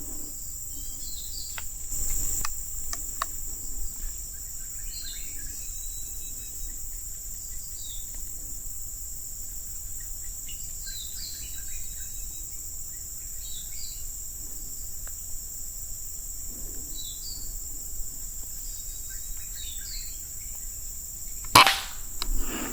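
Steady high insect drone with scattered faint chirps, then one sharp crack of an air rifle shot near the end.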